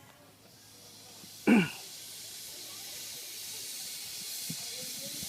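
A steam locomotive hisses steam, the hiss growing steadily louder from about two seconds in. About a second and a half in, one brief loud sound sweeps sharply down in pitch.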